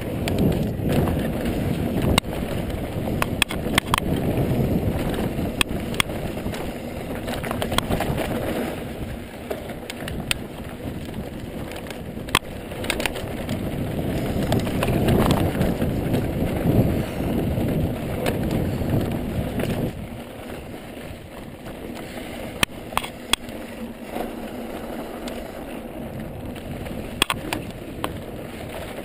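Ibis Mojo HD mountain bike descending a dirt trail, heard from a camera mounted on the rider: a steady rumble of tyres on dirt and wind on the microphone, broken by frequent sharp clicks and rattles as the bike goes over bumps. The rumble lightens about two-thirds of the way through.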